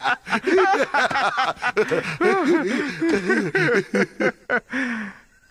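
A voice laughing in a long, rapid run of chuckles, each rising and falling in pitch, trailing off near the end.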